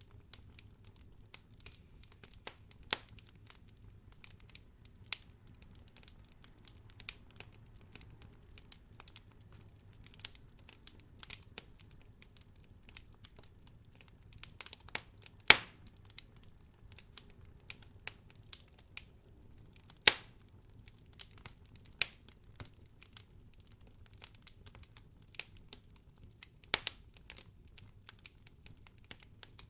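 Campfire of firewood burning, crackling with irregular small pops and snaps. A few louder pops stand out, the loudest about halfway through.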